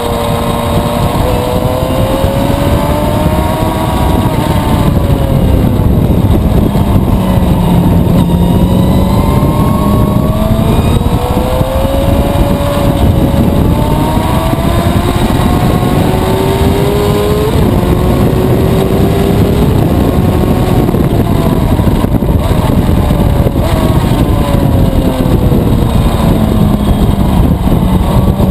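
2011 Suzuki GSX-R750's inline-four engine at speed on a race track, its pitch rising and falling slowly several times with throttle through the corners. A sudden pitch drop about two-thirds of the way through marks a gear change. Wind rush sits under the engine note.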